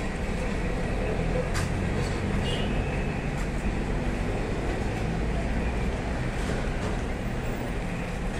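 Steady low background rumble, like distant traffic, with a couple of faint clicks about two seconds in.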